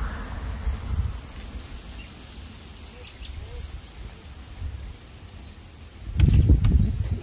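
Wind rumbling on the microphone, strongest in the first second and again from about six seconds in, with a few faint, short bird chirps in the quieter stretch between.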